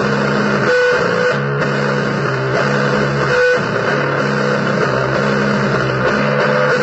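Noisy blues guitar music: a repeating riff of low held notes over a dense, steady wash of hiss and noise, with an occasional higher note above it.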